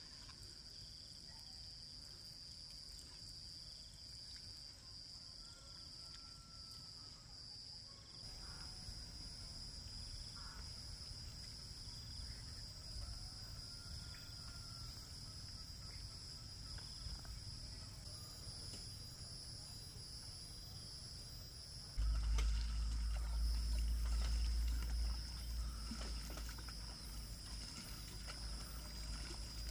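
Insects trilling steadily at a high pitch, with a few faint bird calls. About two-thirds of the way in, a loud low rumble sets in, with scattered clicks.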